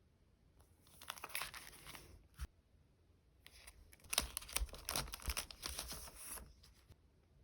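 Sticker sheets and plastic packaging handled close up: crinkly rustling and peeling in two bursts, a short one about a second in and a longer one from about halfway.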